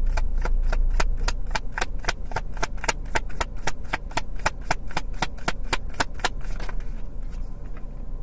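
A deck of tarot cards being shuffled by hand: a quick, even run of card slaps, about six or seven a second, that thins out and stops about seven seconds in.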